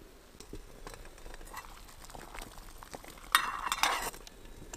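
A metal mess tin's lid is handled on a small camp stove, giving a short clatter of metal on metal about three and a half seconds in.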